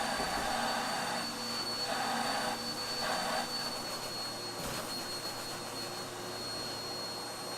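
Vacuum cleaner running steadily with a thin high whine, sucking the air from a bag that has the person sealed inside it. There is a brief knock a little over halfway through.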